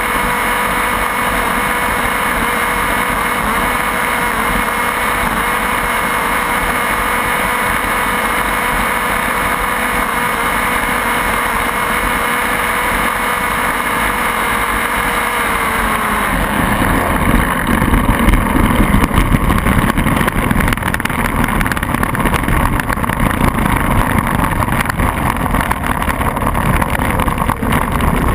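A small Cox two-stroke model glow engine on a tether car running flat out at a steady high-pitched whine. A little past halfway its pitch drops away and a louder, rough rushing noise of wheels and wind takes over as the car carries on circling.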